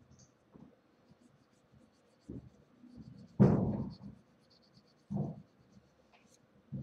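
Nail file scraping over fingernails in short, irregular strokes, with a louder scuff about halfway through.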